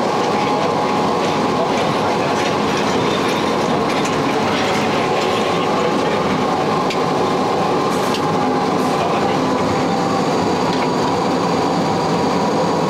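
Sécheron T9 electric locomotive running over narrow-gauge track, heard from its cab: steady running noise with wheel clatter over the rails and a faint steady whine. A few sharp clicks come about halfway through.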